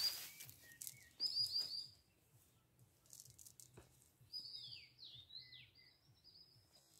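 Small songbird singing: quick high chirps at the start and again about a second in, then a longer phrase of falling, sweeping notes from about four seconds in.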